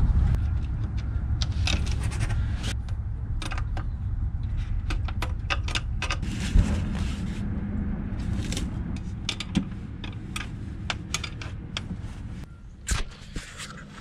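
Short metallic clicks, clinks and knocks of a multi-trumpet air horn being handled and fitted onto its steel mounting bracket, over a steady low rumble that fades away.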